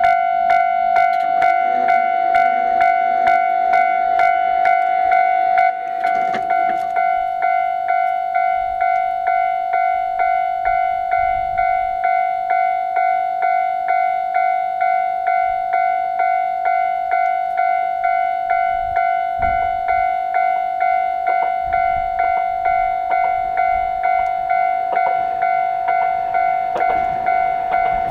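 Japanese level crossing's electronic warning bell ringing in a steady, even rhythm of about two strokes a second, signalling that a train is due and the crossing is closed. It drops slightly in level about six seconds in.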